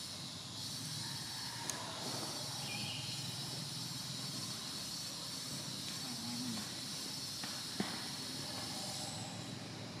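Outdoor ambience: a steady high hiss over a faint low rumble, broken by two brief sharp clicks, one a little under two seconds in and one about eight seconds in.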